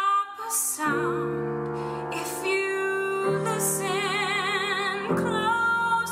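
A woman singing a cabaret song over piano accompaniment, holding notes with vibrato, while the piano changes chords about one, three and five seconds in.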